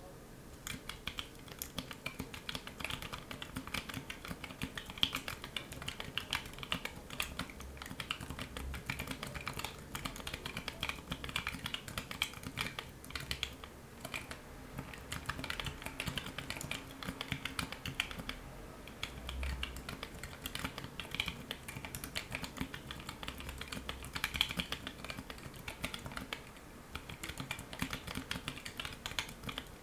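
Steady fast typing on a small split mechanical keyboard with Kailh Choc Brown low-profile switches and low-profile keycaps in a 3D-printed case: a rapid, continuous run of light key clicks with a couple of brief pauses.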